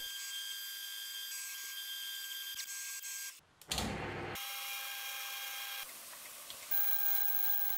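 Milling machine spindle turning an annular cutter through welded steel plate, a steady mechanical whine of several held tones. It breaks off abruptly about three and a half seconds in, resumes a moment later, and shifts slightly in pitch twice near the end.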